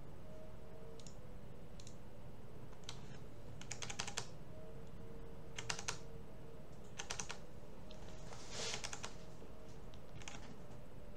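Clicking of a computer mouse and keyboard in use: four short bursts of quick clicks in the middle, between scattered single clicks, over steady low room noise.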